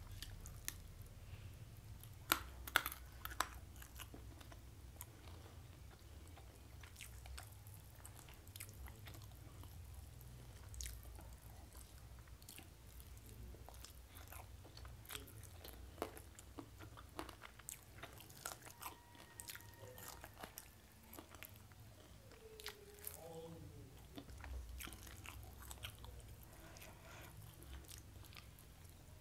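Close-miked chewing of a person eating fried fish and rice by hand: moist mouth clicks, smacks and occasional crunches, the sharpest a couple of seconds in.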